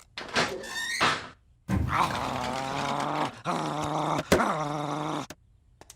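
Animal-like growling in three long, steady stretches, with a sharp click between the second and third, after a few shorter vocal sounds at the start.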